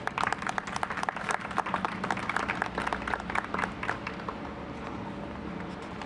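Scattered applause from a small group, the claps thinning out and stopping about four seconds in, leaving a steady low background hum.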